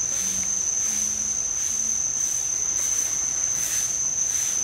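Chorus of tropical insects: a steady high-pitched drone with a shimmering pulse over it a little more than once a second.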